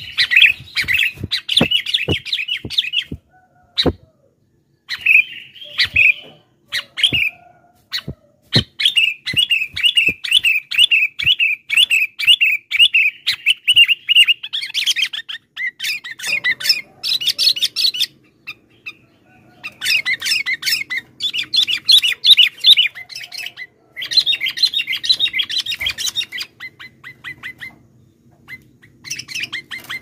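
Sooty-headed bulbul (kutilang) giving noisy bursts of quick, chattering calls, with one long unbroken run of notes in the middle. Sharp clicks come through the first several seconds.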